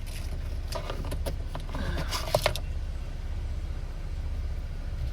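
Vehicle engine running, a steady low rumble, with a few light clicks and rattles in the first half.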